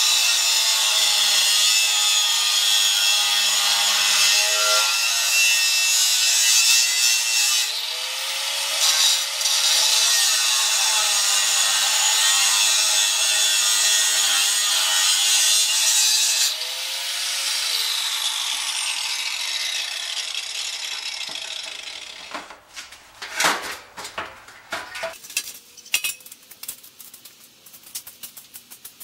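Angle grinder grinding into a steel tube, its pitch sagging and recovering as it bites. About two-thirds of the way through it is switched off and winds down with a falling whine, then comes a string of knocks and clatter.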